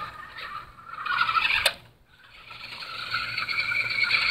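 Toy RC car's small electric motor and gears whining as it drives. The whine cuts out briefly about two seconds in, then comes back and grows steadily louder.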